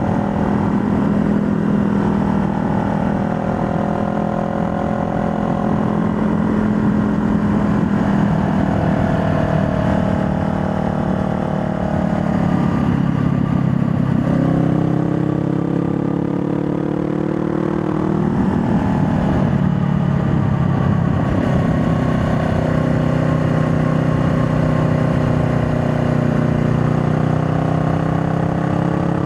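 2020 Honda Rebel 500's parallel-twin engine pulling the motorcycle uphill. Its pitch rises and falls several times as the rider accelerates and eases off.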